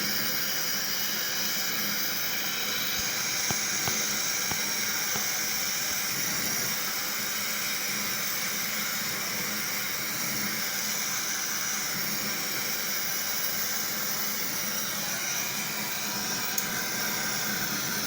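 Steady hiss of R600 refrigerant gas over a faint low hum during the charging of a refrigerator, with a few small ticks about three and four seconds in and again near the end.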